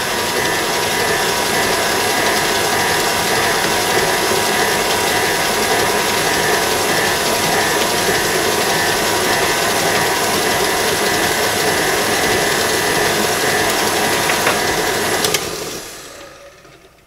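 KitchenAid tilt-head stand mixer running steadily with its flat beater, beating an egg into creamed shortening and sugar, with a steady motor and gear whine. The mixer is switched off about fifteen seconds in and winds down quickly.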